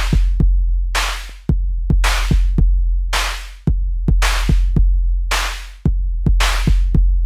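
Background music: an instrumental beat with a deep, sustained bass and sharp drum hits about once a second.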